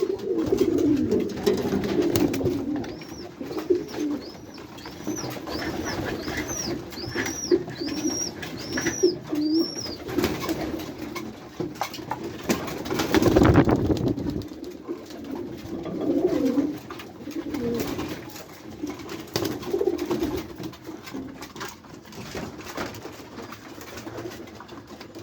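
A flock of white pigeons cooing steadily in a small loft at feeding time. A quick run of about ten high chirps sounds over the cooing for several seconds early on, and a loud brief rustle comes about halfway through.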